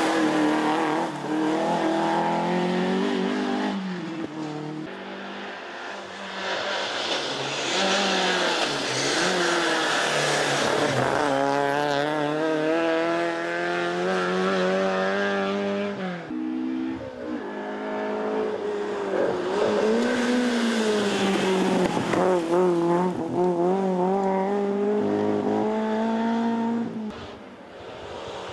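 Rally car engines driven hard on a tarmac stage, climbing in pitch through each gear and dropping back at the shifts and corners, as several cars pass in turn.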